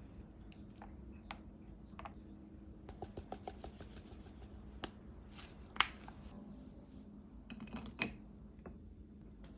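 Quiet kitchen handling sounds: scattered light clicks and taps, a quick run of small ticks about three seconds in, and two sharper clicks near six and eight seconds.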